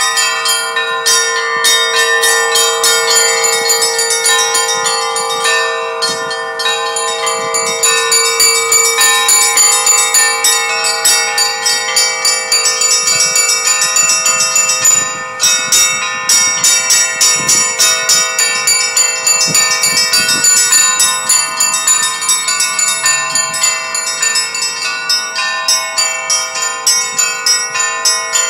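Russian Orthodox church bells ringing: many bells of different pitches struck in a fast, steady rhythm over a lower tone that rings on throughout, with a brief drop in the ringing about halfway.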